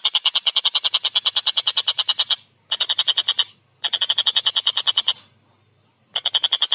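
Collared kingfisher (tengkek buto) giving its rapid chattering call: fast runs of harsh notes, about ten a second, in four bouts broken by short pauses.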